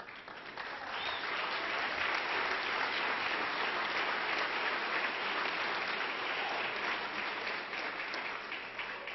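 Audience applauding: the clapping swells in over the first second, holds steady, and eases off a little near the end.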